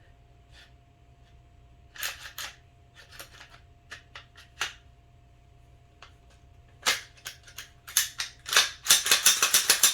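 Sharp metallic clicks and clacks of a Glock 34 slide being worked back onto the pistol's frame rails against some resistance, a few at first and then a quick run of them near the end.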